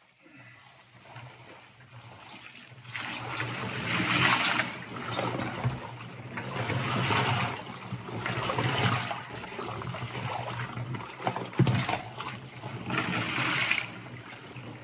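Icy water sloshing and swirling in an ice-bath tub as a man steps in and lowers himself into it, coming in repeated swells, over a steady low hum.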